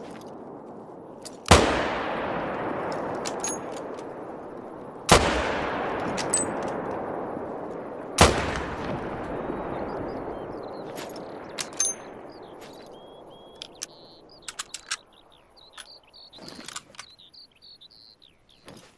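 Three rifle shots, about three and a half and then three seconds apart, each followed by a long fading echo, with small metallic clicks between shots. Faint chirps and ticks follow as the last echo dies away.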